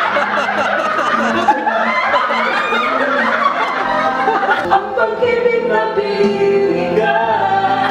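Music with a singing voice, mixed with a group of people laughing and chattering. The laughter and chatter are thickest in the first half, and the held, clearer musical notes stand out more in the second half.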